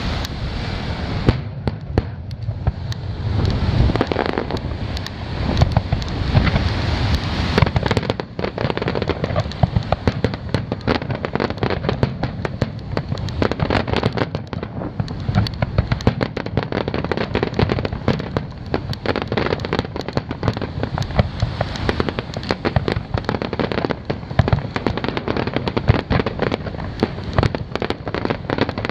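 Aerial firework shells bursting in a rapid, unbroken barrage, deep booms mixed with sharp cracks and crackle. The low booms are heaviest in the first several seconds.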